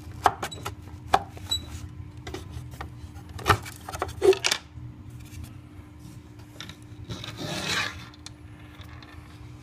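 Bottom electronics cover of a CTC 3D printer being worked off its tabs: a run of sharp clicks and knocks, then a longer rubbing scrape about seven seconds in as the panel comes free.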